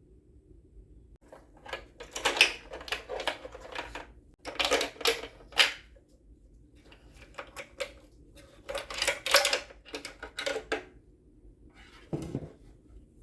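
Hard parts clicking and rattling as they are handled, in several irregular bursts of rapid clicks with short pauses between.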